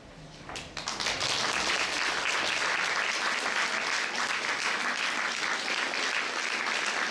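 Audience applauding: a few scattered claps about half a second in, swelling within a second into steady, dense applause.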